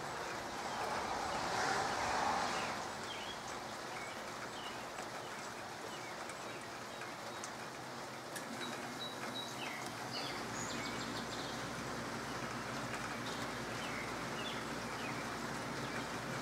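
Soft, light rain falling steadily on leafy trees, with short bird chirps now and then. About two seconds in there is a brief swell of louder noise, and about ten seconds in a low steady hum comes in under the rain.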